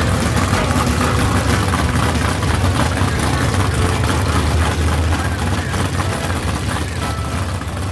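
Engine idling steadily, fading toward the end.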